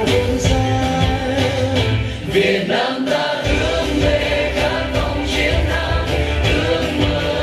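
A song with singing and a steady beat, played loud through the stage loudspeakers as dance music. The bass drops out for about a second midway, then comes back.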